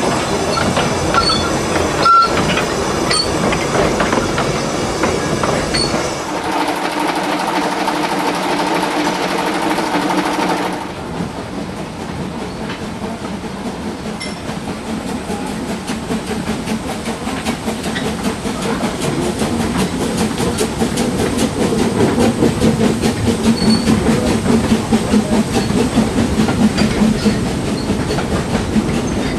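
Narrow-gauge train running on the rails, wheels clicking over the joints. There is a sharp knock about two seconds in, and a quick, regular beat that grows louder toward the end as carriages pass close by.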